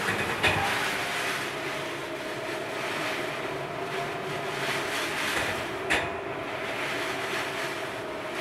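Typhoon wind rushing steadily over rough water, with a low steady hum underneath and two sharp knocks, one about half a second in and one about six seconds in.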